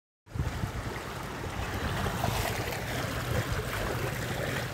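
Sea surf washing on the shore, with wind buffeting the microphone in a low rumble. It comes in abruptly just after the start and fades near the end.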